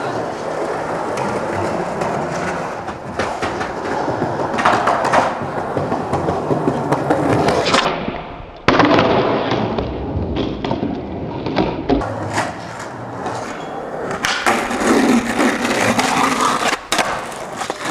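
Skateboard wheels rolling on concrete, with the trucks grinding along concrete ledges and sharp clacks as the board pops and lands.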